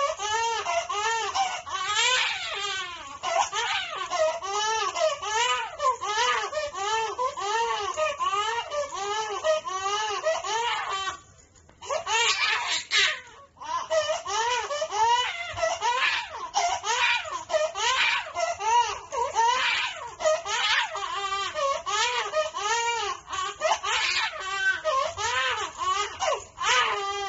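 Young infant crying: an unbroken run of short rising-and-falling wails, about two a second, with a brief break for breath about eleven seconds in.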